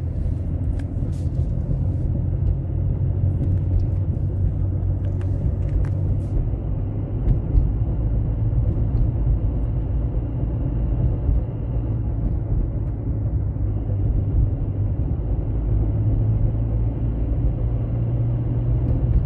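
Opel Astra J's 1.3 CDTI four-cylinder diesel driving in gear under load at about 30 km/h, heard from inside the car: a steady rumble with a faint steady high whine, carrying the noise of its F17 gearbox, which the owner puts down to the gearbox's known bearing fault.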